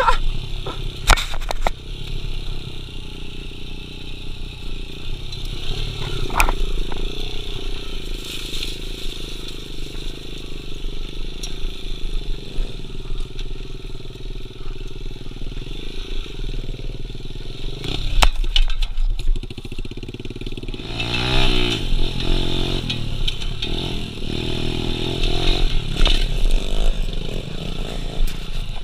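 Suzuki 110 pit bike's small single-cylinder four-stroke engine running under throttle on a rough dirt trail, the revs rising and falling repeatedly about two-thirds of the way through. Sharp clattering knocks from the bike bouncing over the ground come a few times along the way.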